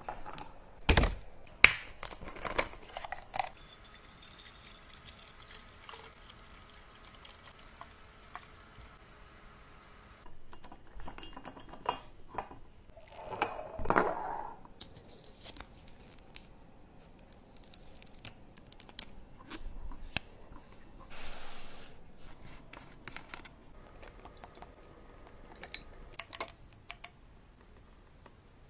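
Items being handled and set down while restocking a fridge: separate clicks, taps and clinks of plastic and glass, with rustling of packaging. The loudest rustle comes about halfway through.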